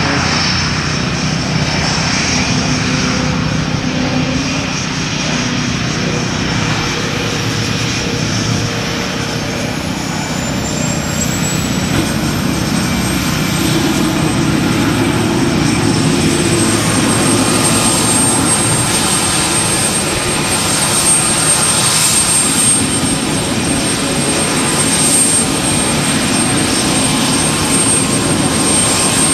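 Propeller engines of two aerobatic planes, an Extra 300S and an MX-2, droning overhead as they fly in formation. A little past the middle, a steady high whine takes over from a jet engine running on the ground, the F-16's turbine at idle.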